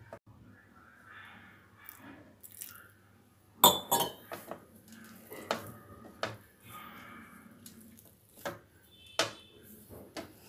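Hands mixing a flour-and-ghee dough in a glass bowl: soft rubbing and crumbling, with a series of sharp clinks and knocks against the glass, the loudest about three and a half seconds in and one ringing briefly near the end.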